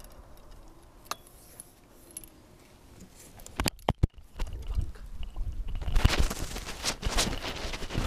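Handling noise on the camera's microphone: a few sharp knocks about three and a half seconds in, then a stretch of crackly scraping and rustling with a low rumble as the camera is moved and held out.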